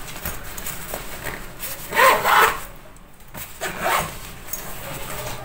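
Zipper of a fabric insulated lunch bag being pulled shut, in two rasping pulls about a second and a half apart.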